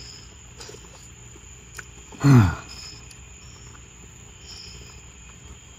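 Crickets chirping steadily as a high, continuous trill. About two seconds in, a man's voice gives one short sound that falls in pitch.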